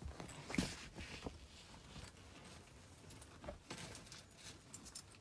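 Faint rustling and scattered light taps from a puppy clambering over fabric sofa cushions, its harness and lead shifting as it moves.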